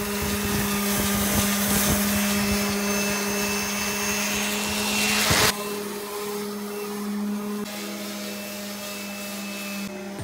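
Electric power sander running against faired fiberglass window cutouts, a steady motor hum under a loud grinding hiss. About halfway in the grinding cuts off suddenly, leaving a quieter steady motor hum.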